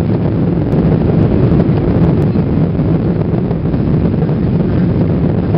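Cabin noise of a Boeing 777-300ER on final approach, heard from a window seat behind the wing: the steady drone of its GE90 engines and airflow over the wing with flaps extended, with a low hum running through it.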